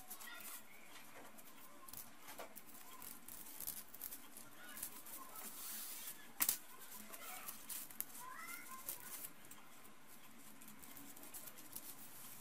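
Quiet hand-sewing of grosgrain ribbon with a needle and thread: faint rustling and small clicks, with one sharper click about six seconds in. A few faint rising calls from an animal sound now and then.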